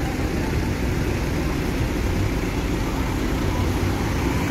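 Large coach buses' diesel engines running as the buses pull out and manoeuvre across the terminal apron: a steady low noise with no distinct pitch.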